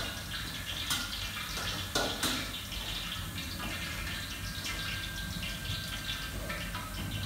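Kitchen work sounds: water running and dripping, with a few sharp clinks of utensils or dishes in the first couple of seconds and a steady low hum underneath.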